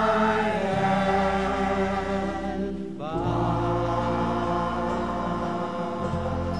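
Background music: a choir singing long held chords, moving to a new chord every few seconds.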